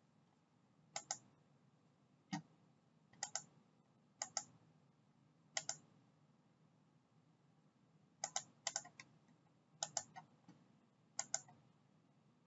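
Faint, scattered clicks of a computer mouse and keyboard, about nine of them, most in quick pairs, as an on-screen form is filled in.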